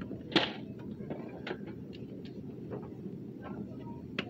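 Canned goods knocking together as a tray of cans is set into a shopping cart full of cans: one sharp clatter about half a second in, then a few lighter clicks and knocks over a steady low background rumble.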